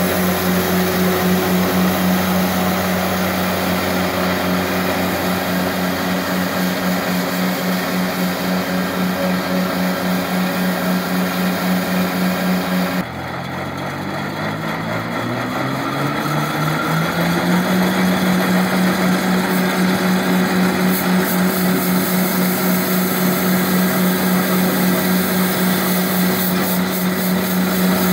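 Walker MD mower's Kubota D722 three-cylinder diesel engine running at high throttle while it drives a rotary broom attachment. About halfway through the sound drops suddenly, and the engine then speeds up over a few seconds from a lower pitch back to a steady high pitch.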